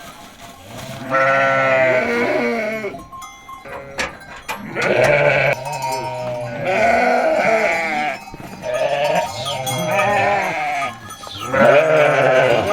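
A flock of sheep bleating: long, wavering calls from several animals, one after another and overlapping, with a short lull and a few sharp clicks about three to four seconds in.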